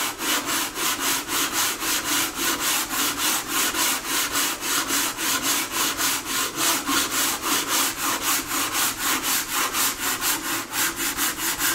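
Sandpaper on a flat sanding block rubbed back and forth along the wooden rim of a bağlama bowl, in a steady rhythm of quick strokes, about four a second. The edge of the stave bowl is being sanded flat at a slight outward angle to make the seating surface for the soundboard.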